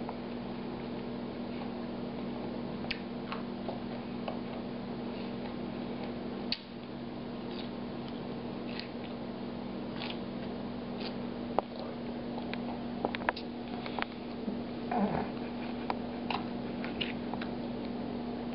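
A small child chewing dill pickles: scattered soft crunches and mouth clicks at irregular intervals, over a steady low hum.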